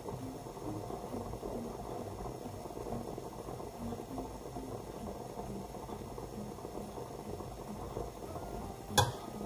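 Water boiling in a pot on the stove, a steady bubbling hiss. A single sharp knock comes near the end.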